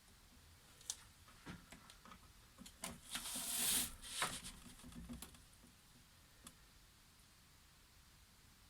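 Hands handling things at close range: a scattered run of small clicks and taps, with a short rustling swish about three seconds in and a last click a few seconds later.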